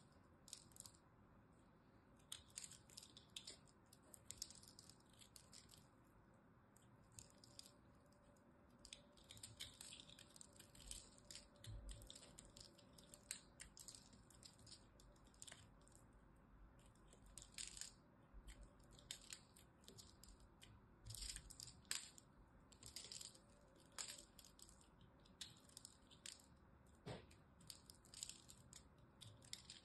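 A small knife blade carving into a dry, crumbly soap ball, making a faint, irregular run of tiny crunches and crackles as the soap breaks off in crumbs.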